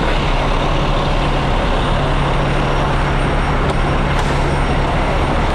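Steady vehicle engine and road noise with a constant low hum, as heard from a car driving past idling fire engines.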